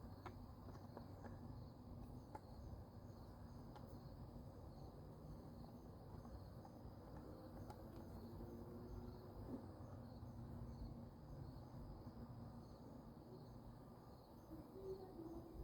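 Near silence, with crickets chirping faintly in an even, repeating rhythm over a low background hum.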